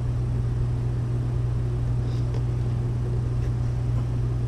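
A steady low hum of a machine running in the room, with a few faint taps from cardboard figure boxes being handled between about two and three and a half seconds in.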